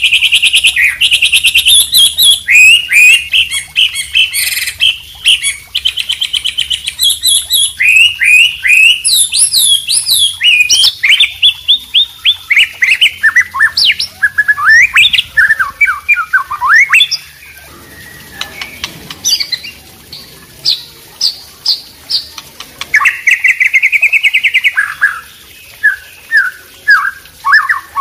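Mixed songbird recording of murai batu (white-rumped shama), wambi and trucuk ropel (yellow-vented bulbul) singing. The song runs without pause as fast trills of repeated notes and quick rising and falling whistles, softer for a few seconds past the middle, then a rapid trill again.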